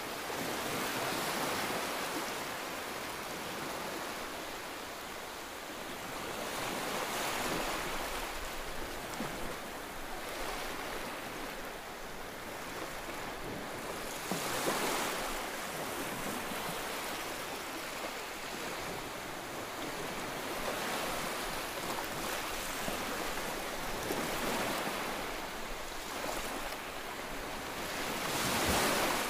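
Coconut milk simmering in a frying pan with fish and vegetables: a steady bubbling hiss that swells and eases every few seconds.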